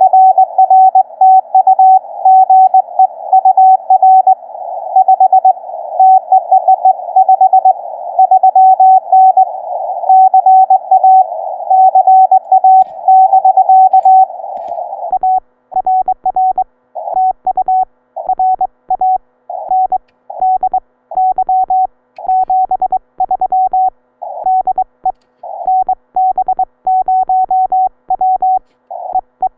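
Morse code (CW) tone of about 700 Hz from a Ten Tec Eagle transceiver, keyed on and off in characters. For about the first half it comes with a band of receiver hiss around it, a station being copied through the narrow CW filter. From about halfway the keying is clean, with silence between characters: the rig's sidetone as the operator sends.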